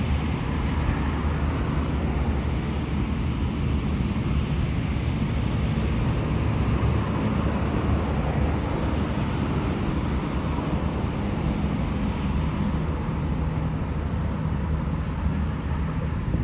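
Steady low drone of distant engines, unchanging throughout.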